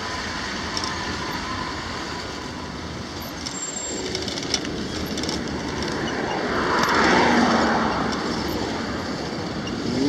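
Road traffic noise and rushing air heard from a bicycle moving between lanes of cars: a steady wash of noise that swells louder about seven seconds in.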